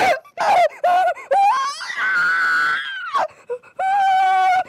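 A person screaming and wailing in distress: a string of short, high-pitched cries, then two long drawn-out wails, one about two seconds in and one near the end.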